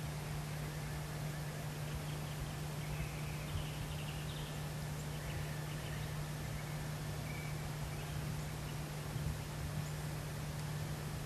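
A steady low hum under a constant hiss, with a few faint high bird chirps between about three and eight seconds in.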